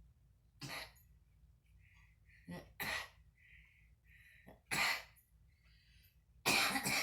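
A woman coughing in a string of about five separate coughs, the loudest near the end; a smoker's cough.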